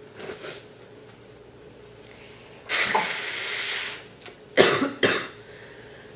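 A woman with a bad cold coughing: a drawn-out rasping sound from the throat about three seconds in, then two sharp, deep, chesty coughs half a second apart.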